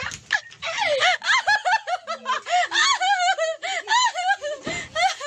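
High-pitched laughter, in many quick rising-and-falling bursts one after another.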